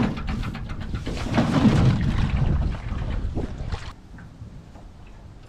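Wind rumbling on the microphone, with irregular knocks and splashes of water. It quietens about four seconds in.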